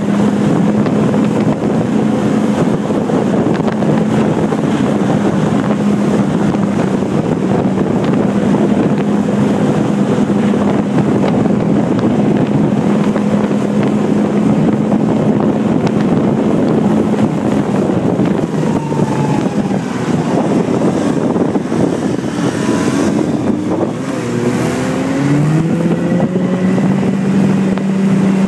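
Yamaha Phazer snowmobile's four-stroke twin running steadily while towing a loaded cargo sled, its engine note wavering up and down in pitch for several seconds in the last third, then steadying. Heavy wind noise on the microphone.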